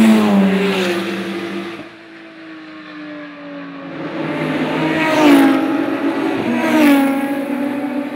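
GT race cars passing at speed. One car goes by right at the start, its engine note dropping in pitch and fading within about two seconds. From about four seconds in the engine sound builds again as more cars go by, and the pitch drops twice.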